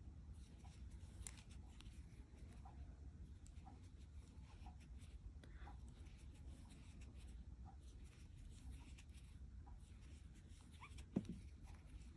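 Near silence with the faint scratching and ticking of a metal crochet hook working cotton yarn in single crochet. A brief, louder short sound comes about eleven seconds in.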